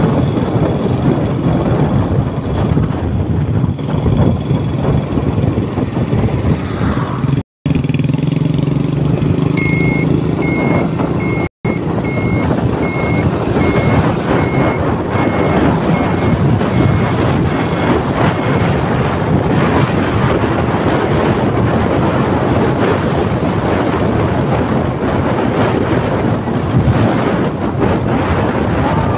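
Wind rushing over the microphone and a motor scooter's engine running while riding down a road. For about nine seconds in the middle, a high short beep repeats about one and a half times a second. The sound cuts out for an instant twice.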